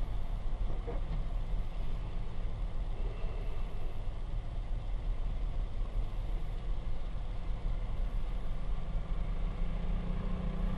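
Low, steady vehicle rumble of idling traffic heard from inside a stopped car through a dashcam, with a low hum rising in pitch near the end.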